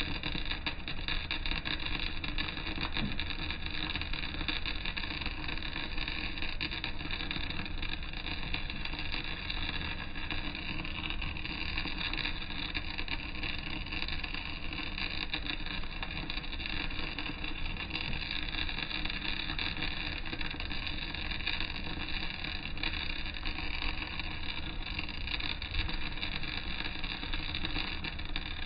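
Electric welding arc crackling steadily through a vertical-down (3G downhill) weld on steel plate.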